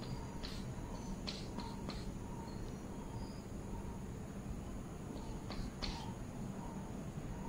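Chalk on a blackboard: short scratches and taps as tally marks are stroked in, in a cluster in the first two seconds and another about five to six seconds in, over a low background hum.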